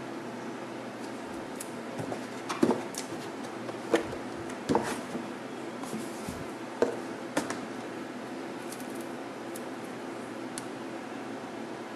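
Hands handling a white iPad 2 and its cardboard box: a handful of light taps and clicks between about two and seven and a half seconds in, over a steady room hum.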